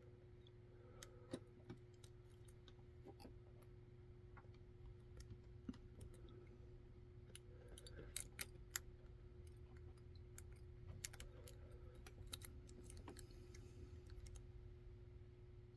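Faint, irregular metallic clicks and ticks of a hook pick working the pins of a Kaba Kik lock cylinder under top-of-keyway tension, with a few sharper ticks in a cluster about eight seconds in.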